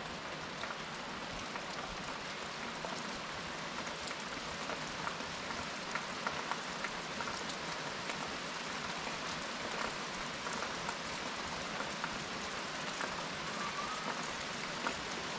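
Rain falling steadily: an even patter of many small drop ticks.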